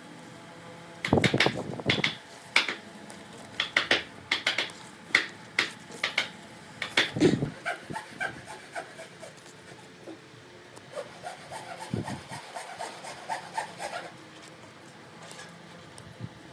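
A hand tool rubbing and scraping on wood in a run of irregular strokes. The strokes are louder in the first half, then turn to softer scraping with a faint squeak.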